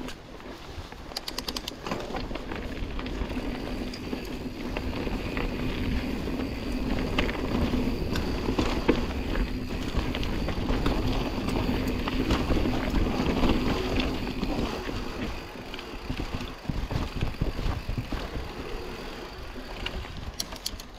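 Mountain bike riding a dirt singletrack: tyres rolling over the trail and the bike rattling over bumps, with a low steady hum for most of it. Runs of rapid ticking come about a second in and again near the end.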